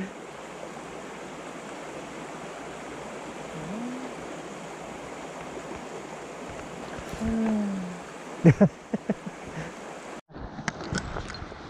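Small mountain stream running steadily over rocks and gravel. A brief low hum of a voice comes a little past the middle, then two sharp clicks, and the sound breaks off abruptly shortly before the end.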